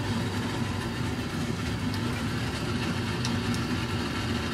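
Steady low mechanical hum, with a few faint strokes of a paintbrush on the painted wooden box.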